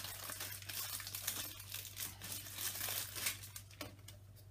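Thin clear plastic bag crinkling and rustling in the hands as an eyepiece is unwrapped from it, the crackling dying away near the end.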